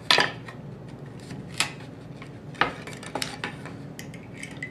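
Nail pulling pliers working nails out of wood molding: a handful of separate sharp metallic clicks and scrapes, the loudest at the very start.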